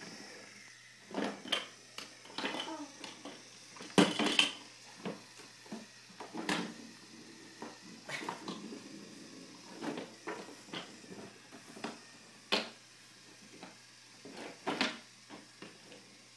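Wooden toy trains and track pieces clacking and knocking on a play table as a toddler handles them, in irregular bursts with scraping in between; the loudest knock comes about four seconds in.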